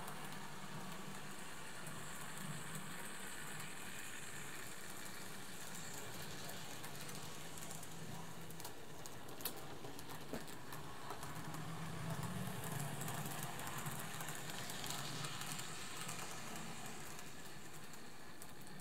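N-scale model locomotive running on its track: a faint, steady whirr of its small electric motor and wheels on the rails, a little louder for a few seconds past the middle, with a couple of light clicks.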